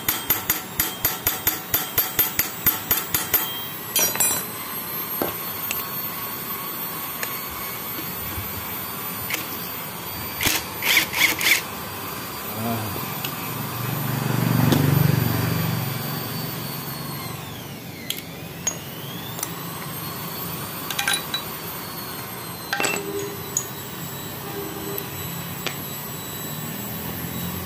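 Rapid light hammer taps on a steel punch held against the round cap on the crankshaft end of a Honda Megapro engine, about five a second for the first three to four seconds. Careful tapping like this loosens the part without cracking it. A few scattered metal clicks follow, and a low rumble swells and fades near the middle.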